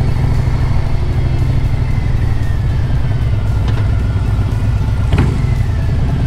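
2020 Harley-Davidson Low Rider S's Milwaukee-Eight 114 V-twin with Vance & Hines Big Radius exhaust running at low speed in town traffic. Two short sharp clicks come about a second and a half apart in the second half.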